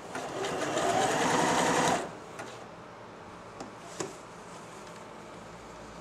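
Janome Jem Platinum 760 sewing machine stitching a zigzag for about two seconds, picking up speed and then stopping suddenly, followed by a few light clicks.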